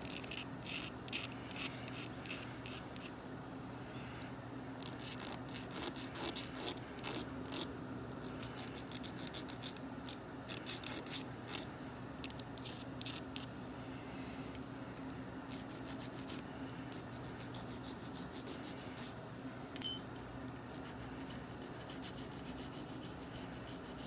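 Small hand file rasping back and forth on the bit of a key blank in several runs of quick strokes, touching up the ward cuts so the key fits the mortise lock. About twenty seconds in there is one sharp metallic clink.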